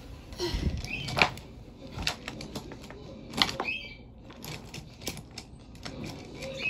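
Irregular clicks and knocks of a Munipals toy subway car being handled and its wheels moved, with a few short high squeaks mixed in.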